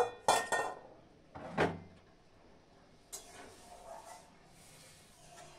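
Steel kitchen utensils clattering: a sharp knock and a ringing metal clatter at the start, another knock about a second and a half in, then a lighter click and faint scraping as a ladle stirs a steel pan.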